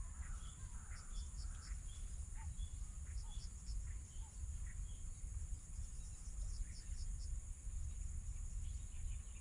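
Insects droning steadily at a high pitch, with short chirps repeated in quick little groups and a few scattered bird calls, over a low steady rumble.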